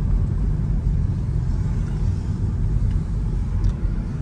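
Steady low rumble of a car driving slowly, about 33 km/h, heard from inside the cabin: road and engine noise.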